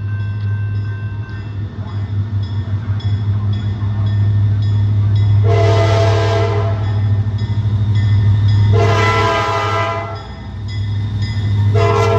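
Diesel freight locomotive passing with its engine running low and steady, sounding three horn blasts of about a second each: about halfway in, about three seconds later, and near the end, where the last one runs on.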